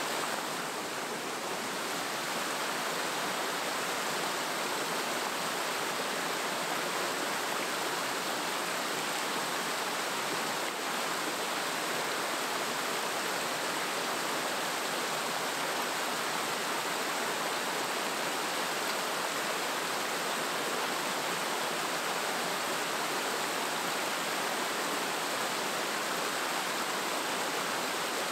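Flowing stream water rushing steadily and evenly.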